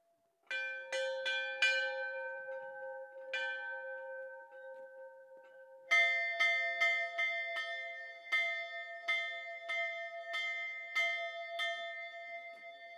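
Several bells struck and ringing on in a played-back field recording: four strikes in the first few seconds, then from about six seconds a quick, even run of strikes roughly every half-second, their tones overlapping.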